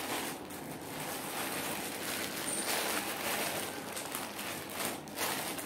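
Plastic courier mailer bag crinkling and rustling as it is opened and handled, with many small crackles.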